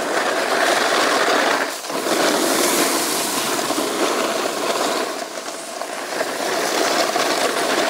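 Snowboard sliding over bumpy, rutted snow, its base and edges scraping and chattering continuously, with a brief dip about two seconds in.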